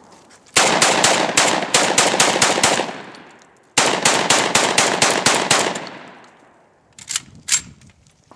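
Saiga 12 semi-automatic 12-gauge shotgun fed from a 30-round drum, fired rapidly in two long strings of shots about a second apart, each string trailing off in echo. Two sharp clicks follow near the end.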